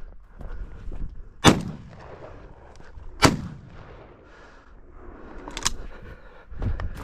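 Two shotgun shots about a second and three quarters apart, each a sharp crack with a low boom trailing after it.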